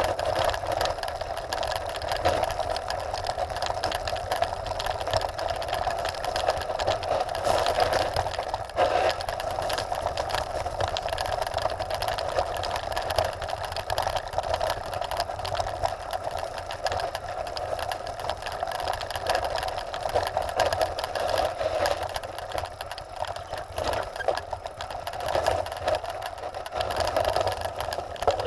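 Trek Top Fuel 9.8 full-suspension mountain bike rolling fast down a loose gravel track: tyres crunching over stones and the bike rattling, with a steady buzzing hum.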